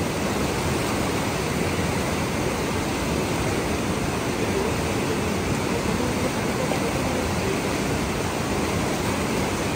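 Fast, rocky mountain river rushing over stones: a steady white-water noise.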